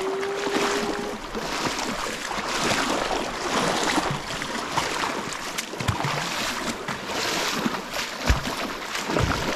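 Hikers' feet and trekking poles splashing through shallow, flowing river water, with a few heavier steps near the end.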